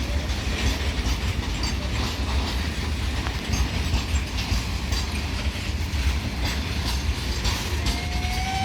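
Freight train wagons passing, with a steady low rumble and repeated wheel clicks on the rails. A train horn starts sounding near the end.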